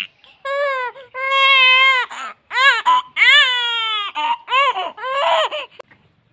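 Young baby crying while being massaged: a run of long wavering wails with short gasps between, stopping shortly before the end.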